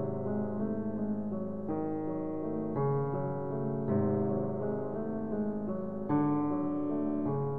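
Slow background piano music: sustained chords, a new chord struck every one to two seconds.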